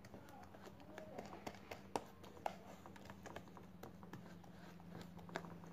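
A thin mix of mortar and PVA glue being stirred in a plastic tub: quiet, irregular clicks and taps as the stirrer scrapes and knocks against the tub, with a few sharper clicks about two seconds in and near the end. A low steady hum runs underneath.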